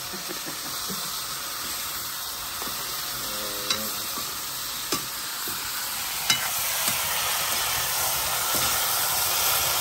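Chicken pieces sizzling as they fry in a black iron wok, turned with a metal ladle that clicks against the pan a few times. The sizzle grows louder over the last few seconds.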